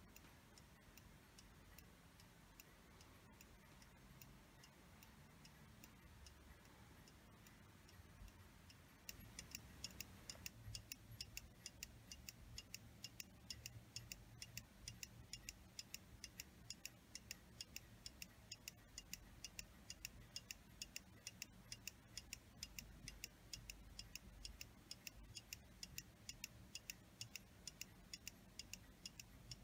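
Antique Junghans pendulum mantel clock's brass movement ticking faintly and evenly, growing louder and crisper about nine seconds in.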